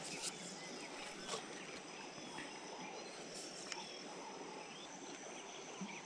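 Chorus of frogs and insects calling along the riverbank: a faint, steady high trill with scattered short calls over it.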